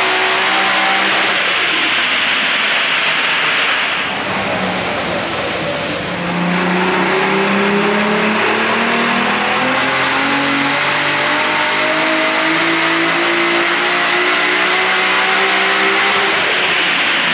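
Nissan Skyline R32 GT-R's twin-cam straight-six, fitted with a big single BorgWarner turbo, running under load on a hub dyno, its note holding and stepping up and down in pitch as it is tuned. About four seconds in it eases off briefly, with a high whistle falling in pitch, then pulls again.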